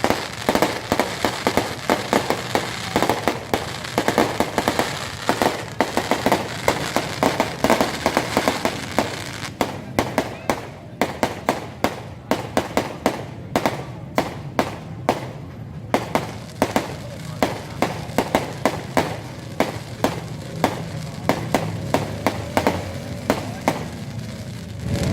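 Fireworks going off in a rapid, irregular string of sharp bangs and crackling pops, several a second, thickest around the middle.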